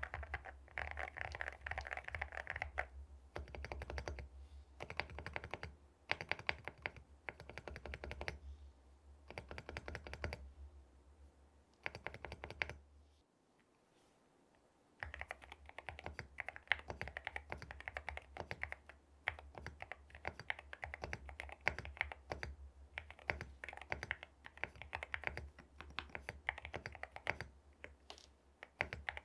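Akko MU01 mechanical keyboard being typed on in quick runs of key clacks, with a short pause about thirteen seconds in.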